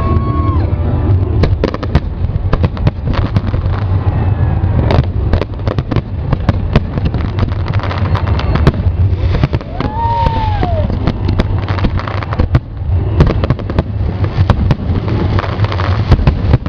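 Fireworks display: a dense, continuous run of bangs and crackles, with a whistling shell that rises and falls in pitch about ten seconds in.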